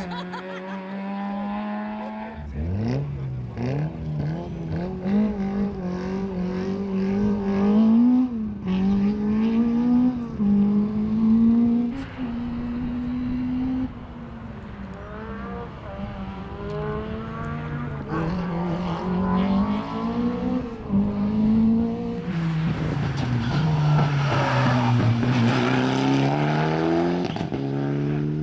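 Rally car engines revving hard as the cars power through corners one after another, the pitch climbing and falling sharply with each gear change and lift off the throttle. A rising pull about two and a half seconds in, and a deep dip and climb near the end, as a car brakes and then accelerates away.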